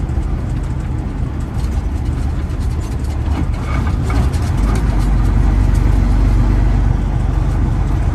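Semi truck's diesel engine and road noise heard from inside the cab while driving: a steady low rumble that swells louder about halfway through.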